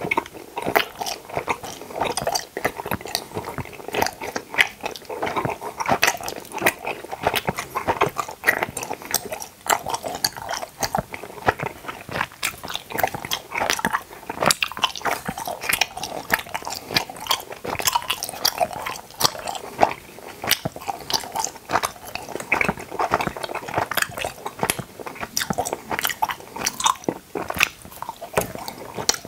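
Close-miked chewing of teeth-shaped gummy candies: continuous wet chewing with many quick, irregular mouth clicks and smacks.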